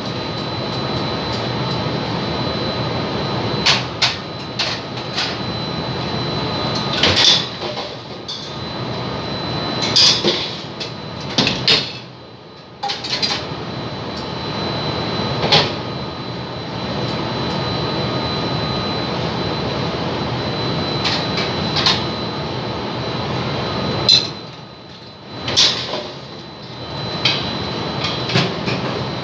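Steady rushing noise of a commercial kitchen's extraction hood and burners, with a faint steady high whine, dropping away briefly twice. Scattered metal clanks and knocks of utensils, trays and the Josper charcoal oven's door sound over it.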